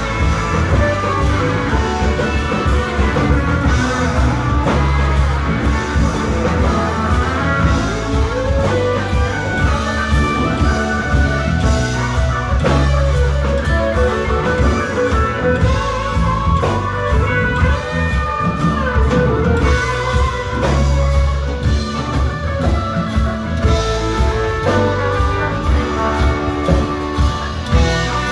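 Live rock band playing an instrumental passage on electric guitars, electric bass, keyboards and drum kit, with a steady beat.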